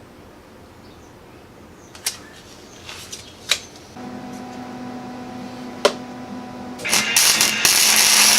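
A few sharp clicks and knocks of handling tools. Then a power tool's motor starts and runs with a steady hum, and near the end it bites in with a loud grinding hiss as it cuts into the metal frame.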